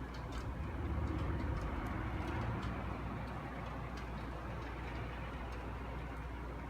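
A steady low rumbling noise with no clear pitch, swelling slightly about a second in, with faint scattered ticks over it: the unexplained sound heard from the sky.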